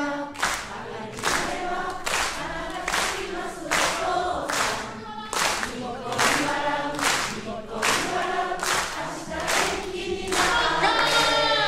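A concert audience singing along together in unison while clapping in time, about two claps a second.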